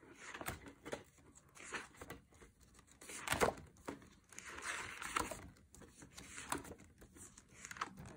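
Stiff card photo pages of a spiral-bound desk calendar being flipped and handled: scattered light taps and paper rustles, the loudest rustle about three and a half seconds in.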